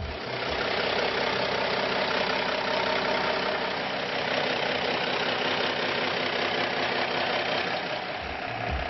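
Cummins NHC-250 six-cylinder diesel engine of a 1986 AM General M944A1 truck running steadily at idle.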